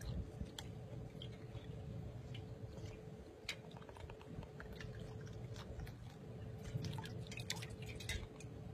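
A dog blowing bubbles into water with its muzzle: faint gurgling with scattered wet pops and clicks, coming thickest about seven to eight seconds in.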